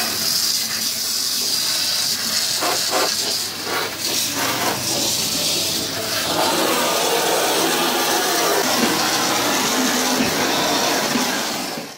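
Steady hiss of a water jet from an arcade water-gun game spraying against the target board.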